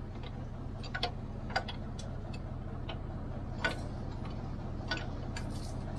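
Irregular light metallic clicks and taps as tools and metal parts are handled on a water tanker pump's shaft coupling, about nine in six seconds, over a steady low hum.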